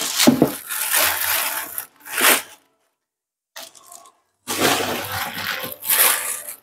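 TV packaging being handled: rustling and scraping in two long stretches, with a short pause in the middle.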